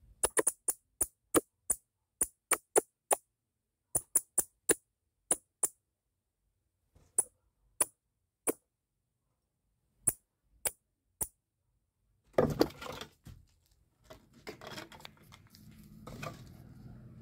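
A run of sharp, irregular clicks, bunched at first and then thinning out, with silence between them. About twelve seconds in there is a louder scuffling burst, followed by a steady rustle.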